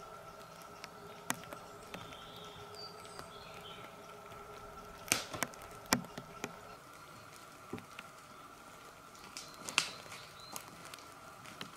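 Footsteps on a forest floor of dry twigs and needles, with scattered sharp snaps and cracks of breaking sticks, the loudest about halfway through and again near the end, over a faint steady hum.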